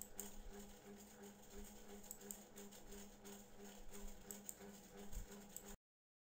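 Faint steady hum with scattered light crackles and clicks, dropping to dead silence near the end.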